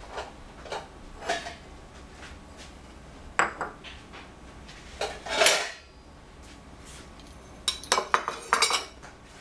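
Ceramic bowls set down on a tiled countertop and metal spoons clinking against a bowl: a series of separate knocks and clinks, the loudest about five seconds in, then a quick run of clinks near the end.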